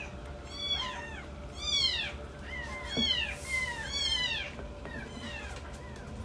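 Very young kittens mewing repeatedly while being bottle-fed milk: thin high-pitched mews, each falling in pitch, about four loud ones and several fainter ones in between.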